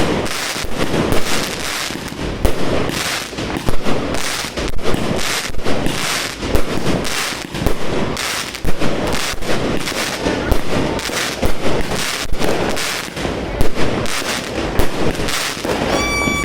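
New Year fireworks and firecrackers going off without a break: a dense run of sharp bangs and crackling, several a second, with some louder reports standing out.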